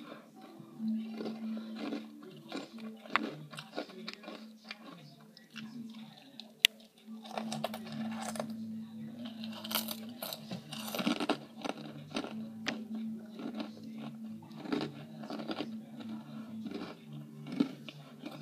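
Froot Loops cereal being chewed: irregular crunches and mouth clicks over a steady low hum.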